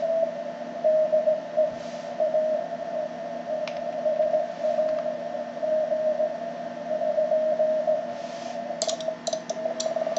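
Morse code (CW) from a ham radio transceiver on the 20 m band: a tone of about 650 Hz keyed on and off in dots and dashes over steady band hiss. Near the end come a run of sharp clicks as the rig switches over to transmit.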